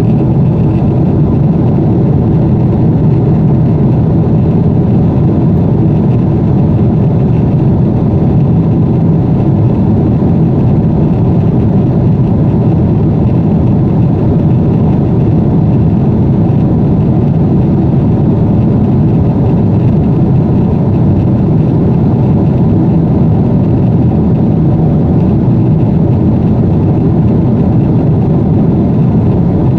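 Steady cabin drone of an airliner in cruise, heard from inside by a window seat: engine and airflow noise, loud and unchanging, deep and rumbling with little high end.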